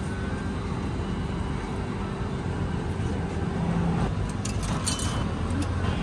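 Steady low background rumble with a faint steady hum, and a few faint clicks between four and five seconds in.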